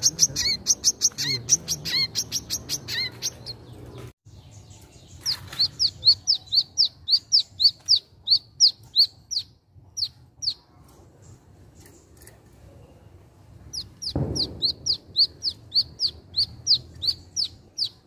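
A caged sunbird (wiceh) singing in rapid runs of sharp, high falling notes, several a second, in three bursts with short pauses between. There is a low thump just before the last burst.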